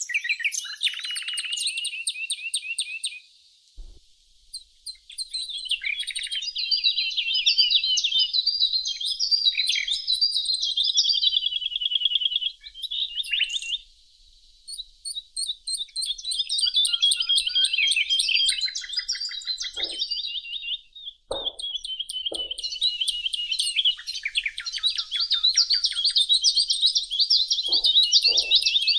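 Songbirds singing long phrases of rapid chirping notes, with short pauses about four seconds in and again near the middle.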